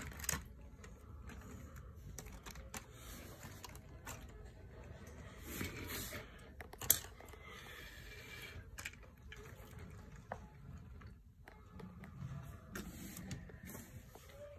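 Scattered light plastic clicks and knocks of a Lego train and its track being handled by hand, with one sharp click about seven seconds in.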